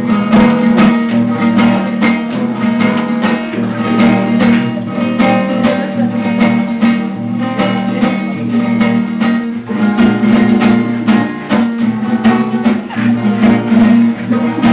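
Acoustic guitar strummed in a steady, rhythmic chord pattern, folk style.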